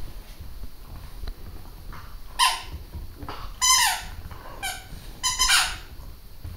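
Squeaky pet toys being squeezed: four short, high squeaks, each sliding down in pitch. The squeakers are nearly worn out.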